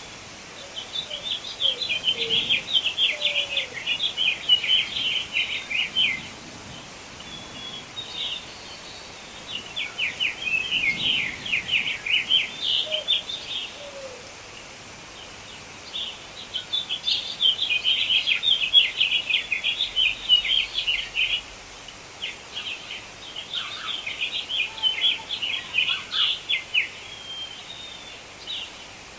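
Bird song: four long phrases of rapid high chirps, each a few seconds long with short pauses between, over a steady faint background hiss.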